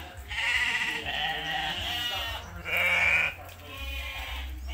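A flock of sheep bleating, several overlapping long, wavering calls, with the loudest, highest bleat about two and a half to three seconds in.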